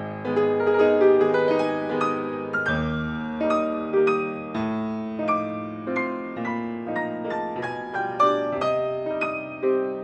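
Background piano music: a gentle melody of struck notes, about two a second, each ringing and fading.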